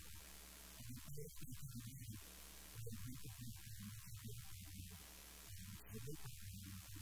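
Steady electrical mains hum in the recording, with faint, muffled speech from a man talking over it.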